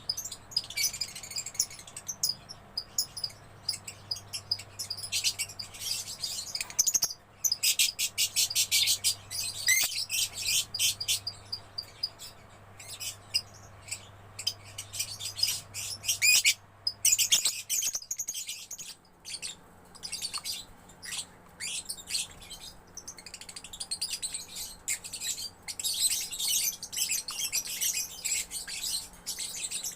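Young lovebird chattering: long runs of rapid, high-pitched chirps and fast trills, broken by short pauses.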